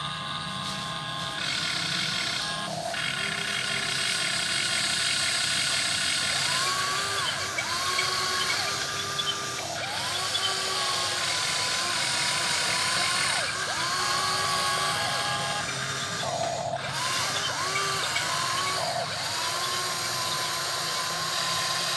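Electric motors of a radio-controlled model excavator whining as the arm and bucket are worked, the whine rising, holding and dropping back every second or two over a steady mechanical hum.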